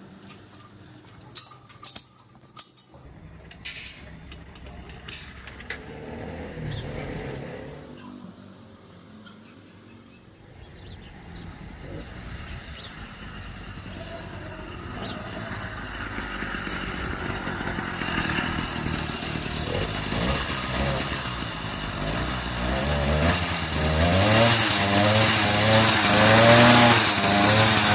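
Two-stroke motorized-bicycle kit engine being started and run: a few clicks and knocks at first, then the engine comes in and grows louder. In the last few seconds its pitch rises and falls as it is revved. It runs without the knocking the owner set out to cure by retightening the cylinder head.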